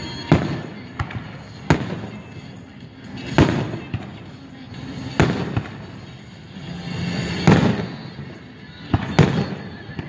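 Aerial firework shells bursting overhead, about eight sharp bangs spaced one to two seconds apart, each followed by a lingering rumble.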